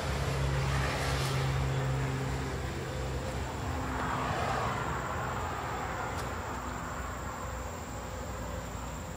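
Road traffic: a steady low engine hum, with the rush of a passing vehicle swelling about four seconds in.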